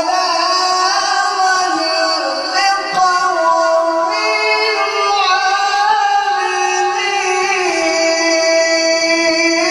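A male qari reciting the Quran in the melodic tajweed style, holding long notes that glide from pitch to pitch, with a brief break about three seconds in.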